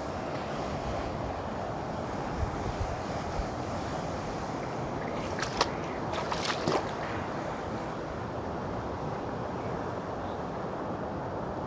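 Sea waves washing on a rocky shore, a steady wash, with a few short sharp clicks about halfway through.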